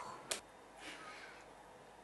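Quiet kitchen sounds of food being served: one short clink of a utensil against the pan or a bowl about a quarter of a second in, then a faint scrape.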